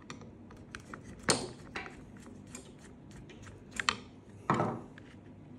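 Screwdriver turning out the small screws of a crossbow's side plate: a run of light clicks and scrapes of metal on screw and plastic stock, with a few sharper clicks and a louder knock about four and a half seconds in.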